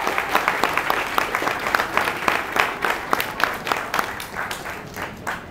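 Audience applauding, the clapping gradually thinning and fading out toward the end.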